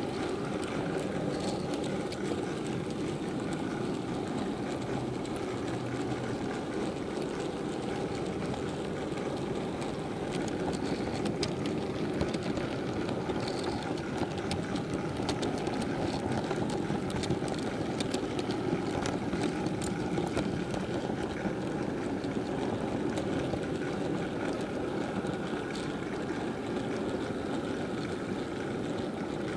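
Steady running noise of a model freight train heard from a camera riding on the train itself: the hum and rumble of wheels and motor on the track, with faint scattered clicks.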